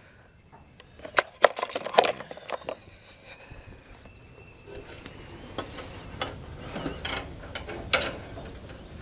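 Steel sockets and a ratchet wrench clinking as a 1/2-inch socket is taken from the tray and fitted to a mower bolt. There are a few sharp metal clicks in the first two seconds, then lighter scattered clicks.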